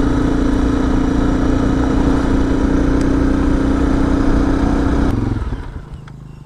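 Honda CRF250L's single-cylinder 250 cc engine, with modified exhaust and airbox, running at a steady cruising speed under gravel and wind noise. About five seconds in the sound cuts off abruptly to a much quieter low rumble.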